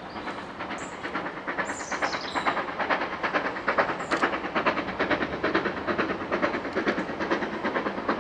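GWR 2-6-2 prairie tank locomotive No. 4160 approaching under steam with a train of coaches, its exhaust beating rapidly and evenly. It grows louder from about a second and a half in as it draws nearer.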